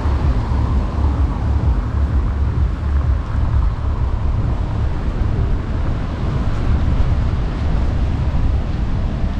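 Wind buffeting the microphone outdoors: a steady, loud, low rumble with a fainter hiss above it.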